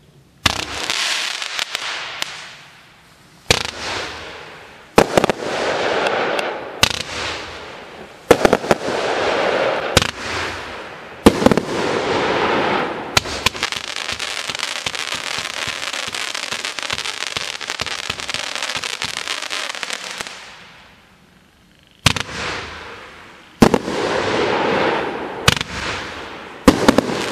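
A 500 g, 54-shot consumer fireworks cake (DNF5103 Duskblade) firing: sharp launch reports every second or two, each followed by a few seconds of crackling from the effects. A long unbroken run of crackling in the middle dies away about twenty seconds in, and a few more shots follow near the end.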